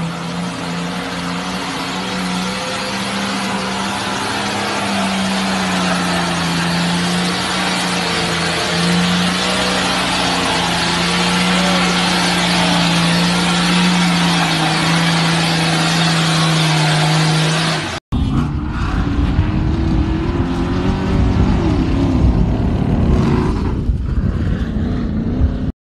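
Toyota Land Cruiser engine running steadily under load as the SUV drives through mud, over a strong steady hiss. About two-thirds of the way in the sound cuts abruptly to a heavy low rumble with a rising engine tone as a desert off-road race truck tips over in the dirt.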